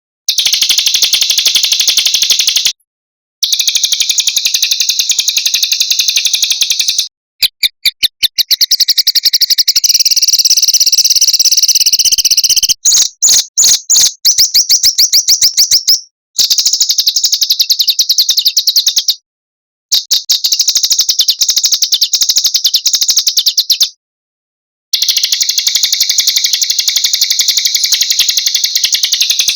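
Small songbirds' rapid, high-pitched trills and sharp repeated notes, in phrases a few seconds long that each cut off into a sudden gap of silence: an edited song loop used for training caged birds. Twice the trill breaks into slower, separate sharp notes.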